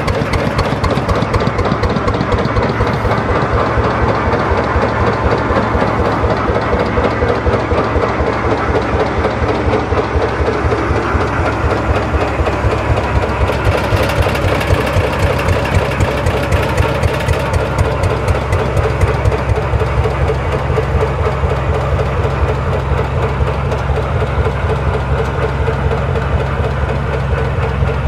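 Arrow natural gas engine driving a pumpjack, running steadily with a rapid, even exhaust beat. The sound gets a little brighter for a few seconds about halfway through.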